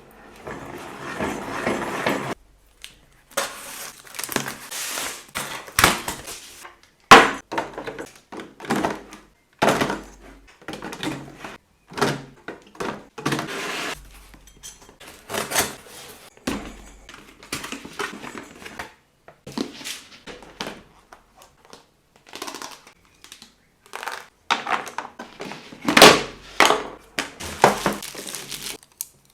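Fridge storage containers and organisers being handled, with many irregular clunks and knocks as they are set down and moved, and stretches of rustling between them.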